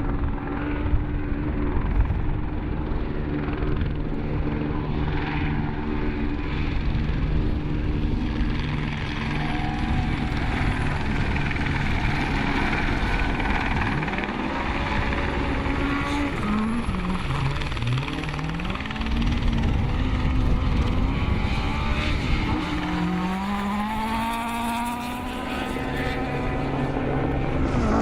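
Ford Escort RS 1800 rally car engine running, steady at first, then its revs falling and rising several times in the second half as it changes gear and accelerates.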